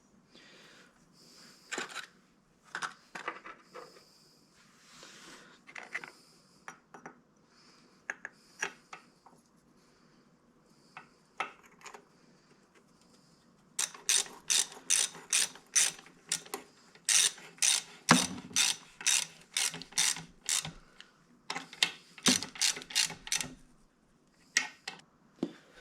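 Hand ratchet wrench clicking as bolts are turned. First come scattered clinks of tools and parts, then about halfway in a steady run of quick ratchet strokes, about three clicks a second.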